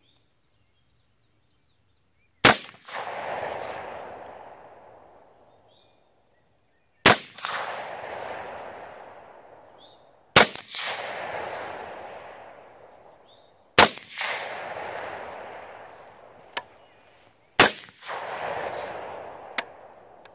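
Five unsuppressed rifle shots from an 8.5-inch 300 Blackout AR-15 with a muzzle brake, firing 150 gr supersonic rounds, spaced about 3 to 4 seconds apart. Each sharp crack is followed by a long rolling echo that fades over about three seconds. Two fainter sharp ticks come near the end.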